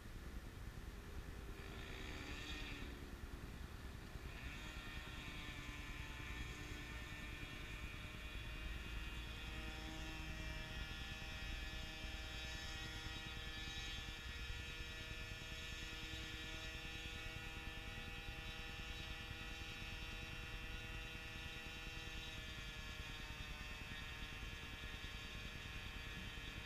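Faint, steady drone of a motor with several held tones, over a constant low rumble.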